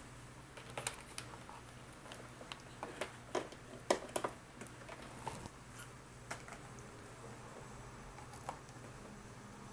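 Irregular light clicks and taps from handling a plug-in power adapter and its cable while plugging it in, with the busiest cluster about three to four and a half seconds in and one more click near the end. A faint low steady hum sits underneath.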